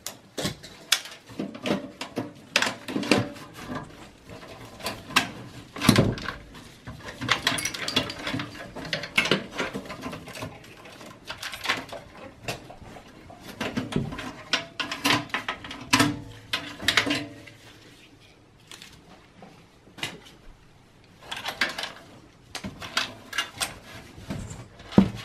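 Cables and plastic connectors being handled and pulled out of a steel desktop PC case. Irregular clicks, taps and scraping rustles, quieter for a couple of seconds after the middle.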